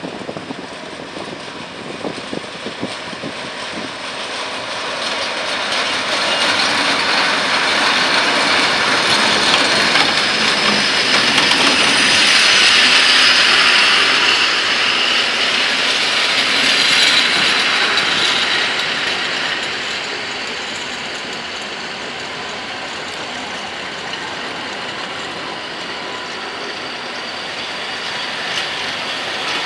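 A train of old wooden and steel passenger coaches rolling slowly past on the rails, the wheels rattling and clicking on the track. It swells to its loudest for about ten seconds as the nearest cars pass, then settles to a steadier, quieter rolling.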